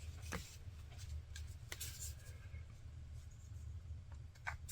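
Faint handling sounds as the leather strap and its tied-on stopper are handled: a few soft clicks and rustles over a low steady hum.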